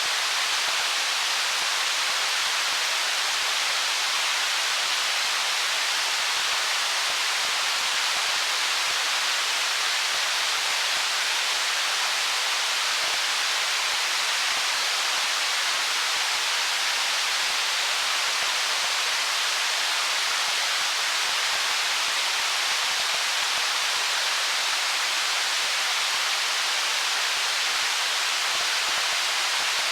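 Stream water running over rocks: a steady, even rushing hiss that does not change.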